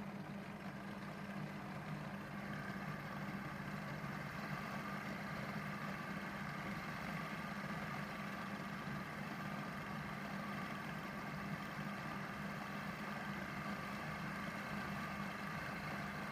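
Industrial peco (picot) designing sewing machine running steadily, its needles and loopers stitching a zigzag scalloped edge; a steady machine hum.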